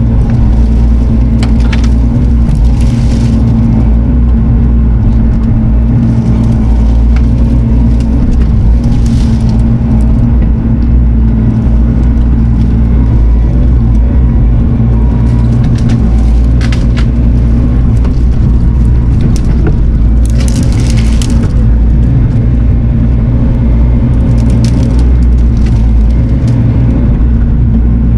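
Diesel engine of Bobcat compact equipment running steadily under load, with scattered sharp cracking and snapping of brush and wood being pushed and crushed.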